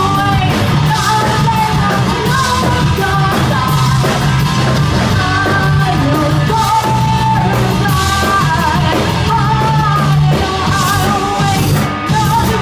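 Live rock band playing loudly, with drums, bass and guitars under a wavering high melody line that may be sung or played.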